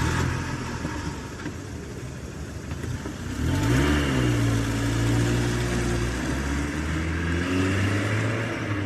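Engine running with a steady low hum. About three and a half seconds in it revs up slightly, then holds at the higher pitch.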